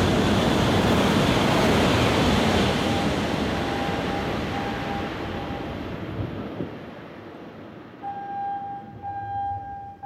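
Tohoku Shinkansen train running past, loudest at the start and fading away over several seconds. From about eight seconds in, an electronic warning tone sounds in short broken pulses.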